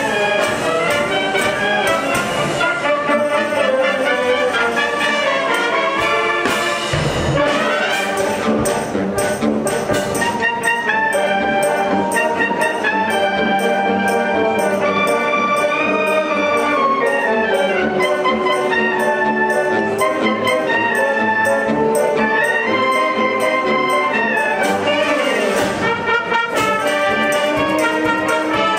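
Concert wind band playing: brass and woodwinds sustain chords and a melody over percussion keeping a steady beat.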